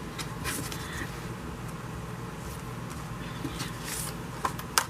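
Cardstock and paper being handled on a craft table: soft rustles and a few light taps, the sharpest near the end, over a steady low hum.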